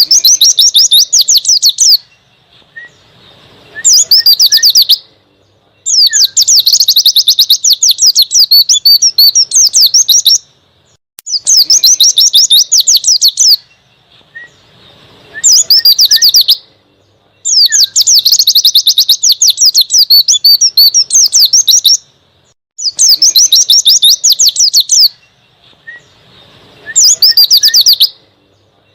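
White-eye (pleci) singing its wild, forest-style 'ngalas' song: loud bursts of rapid, high chattering notes, each phrase one to four seconds long, with short pauses between.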